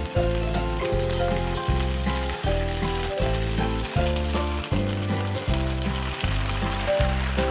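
Pork slices, potato wedges and onion sizzling and crackling as they fry in a non-stick pan, turned with a utensil about halfway through. Background music with a steady beat of bass notes plays over it and is the loudest part.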